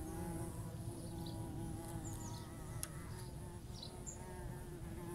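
White-tailed bumblebee workers buzzing in flight: a steady hum that wavers slightly in pitch. Faint high bird chirps come now and then.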